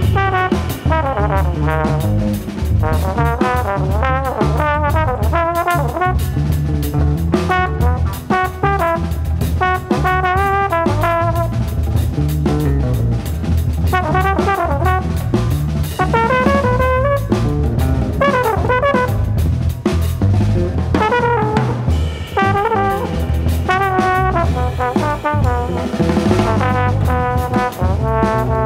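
Improvised jazz: a trombone plays a sliding, wavering melodic line over busy drum kit and conga drums.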